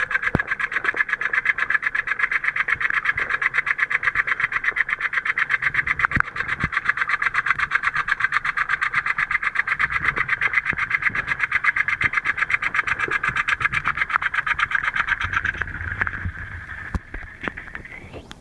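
Dirt Devil Whisper Vac robot vacuum cleaner running: a steady, rapidly pulsing buzz with a few knocks. Near the end the sound changes and then cuts off.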